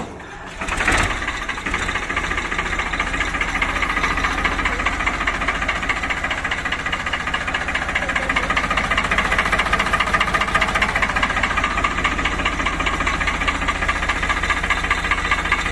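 Farmtrac 45 tractor's three-cylinder diesel engine starting, catching about a second in, then idling steadily.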